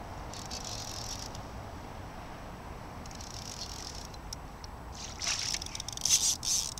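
Water lapping and trickling against the hull of a small boat, over a low steady rumble of wind on the microphone. The lapping comes in short spells about half a second in and around three seconds in, and is loudest near the end.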